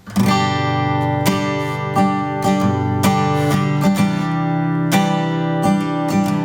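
Acoustic guitar strumming chords in a steady rhythm as a song's instrumental intro, starting abruptly right at the beginning.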